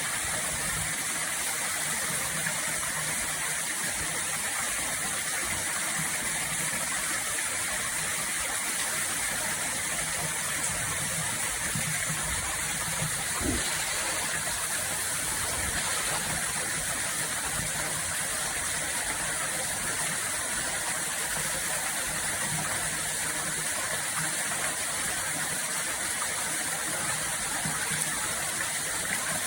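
Steady rushing of flowing water, even throughout, with a brief low thump about halfway through.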